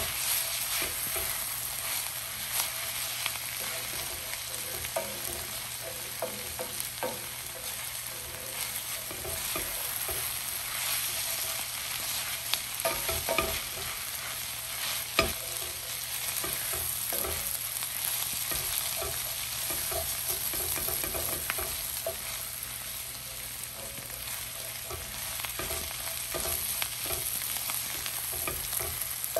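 Chopped cabbage, onion and tomato sizzling in oil in a dark frying pan while a wooden spatula stirs and scrapes through it, with scattered clicks and knocks of the spatula against the pan; the sharpest knock comes about halfway through.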